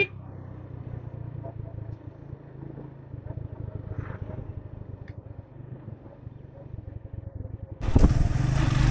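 Motorcycle engine running as the bike rides along at road speed. Near the end a loud rushing noise takes over for about a second.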